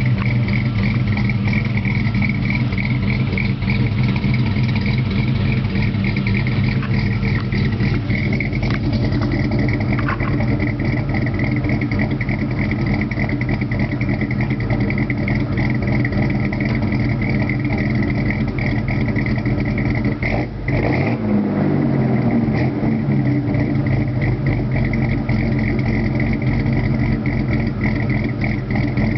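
GMC S-15's 2.8 L V6 idling with a rough, lopey beat through a dual-outlet Flowmaster 40 Series Delta Flow muffler. About two-thirds of the way through, the sound dips briefly and the pitch wavers before it settles back to the same steady idle.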